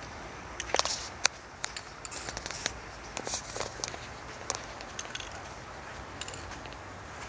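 Irregular clicks and rattles from a spray paint can being handled between strokes, about three or four a second, thinning out after about five seconds.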